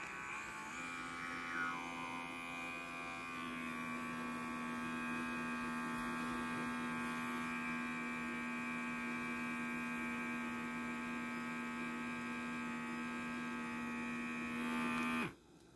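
Battery-powered lip-plumping suction device, its small motor pump humming steadily while pressed to the lips. It starts within the first second, its note fills out about three seconds in, and it cuts off about half a second before the end.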